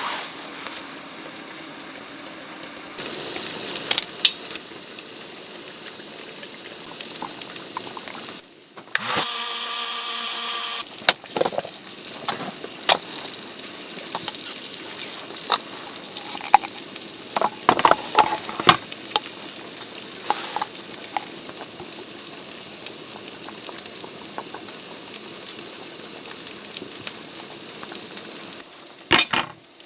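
Food frying in a pan: a steady sizzle with scattered crackles and pops. About nine seconds in there is a brief humming tone lasting a couple of seconds.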